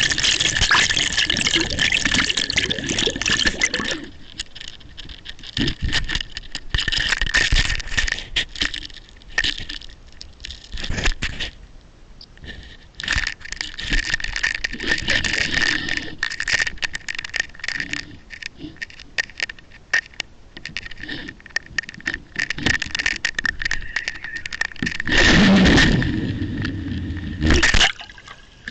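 Water rushing over an underwater line camera as it is drawn through the water, in uneven surges with rattling and scraping clicks, over a faint steady high whine. It is loudest at the start and again in a strong surge near the end.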